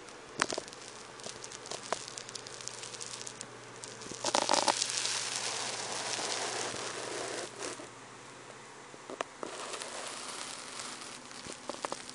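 Close rustling and crackling with scattered sharp clicks. The loudest, a rush of rustling about four seconds in, fades out over the next three seconds.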